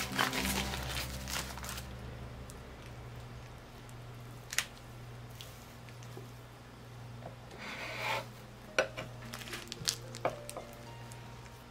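Kitchen knife slicing a glazed pound cake on a wooden cutting board. A plastic food glove rustles at first, then a short scrape as the blade saws through the crust about eight seconds in, with a few light knocks of the knife on the board. A steady low hum runs underneath.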